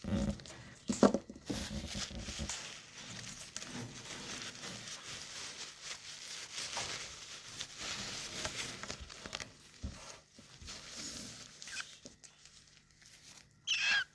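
Cockatiel chick making raspy, scratchy begging noises while being fed from a syringe, with many small clicks, easing off near the end before a short pitched chirp.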